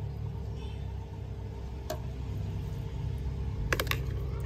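Steady low electric hum of an aquarium air pump, with a few short splashes and clicks from a hand net moving in a bucket of water, the loudest just before the end.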